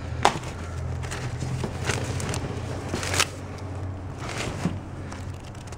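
Papers, folders and books rustling and scraping against each other and the cardboard sides as hands sort through a box of paperwork, with several sharper crackles spread through. A steady low hum runs underneath.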